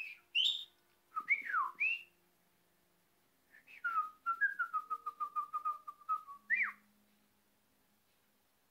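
Pet budgerigar whistling: a few clear sliding notes, then a quick run of short notes at one even pitch, about seven a second, ending on one more sliding note.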